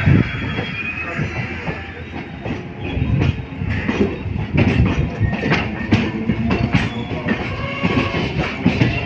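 Passenger train running, heard from inside the carriage: a steady rumble with the wheels knocking irregularly over rail joints and points.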